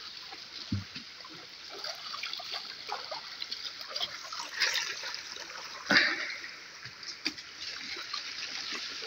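Shallow river water running over stones, with hands splashing and scooping water while washing; two louder splashes come a little past the middle.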